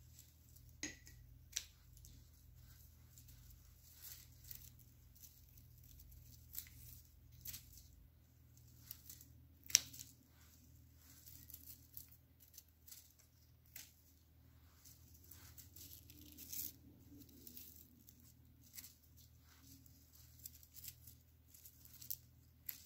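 Scissors snipping through papyrus stems: a series of faint, short, sharp snips at uneven intervals, the loudest about ten seconds in.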